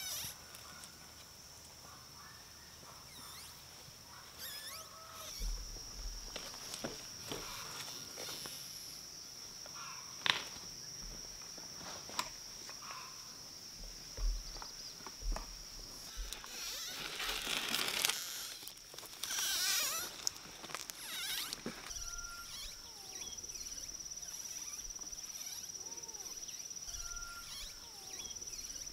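Countryside ambience: a steady high-pitched insect drone with scattered bird chirps and occasional clicks. A louder rustling and scraping stretch comes a little past halfway.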